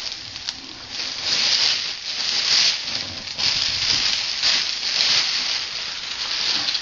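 Paper and packaging rustling and crinkling in repeated swells as presents are pulled out of a cardboard box.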